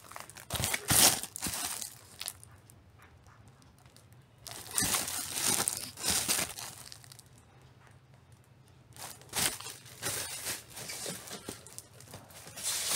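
Plastic record sleeves crinkling and rustling as a vinyl LP is slid out and handled, in three bouts with quieter pauses between.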